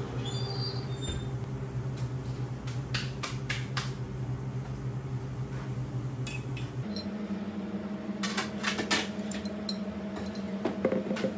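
Metal tongs clicking and clinking lightly against a metal baking tray, a few scattered clicks at a time, over a steady machine hum that shifts to a higher pitch about seven seconds in.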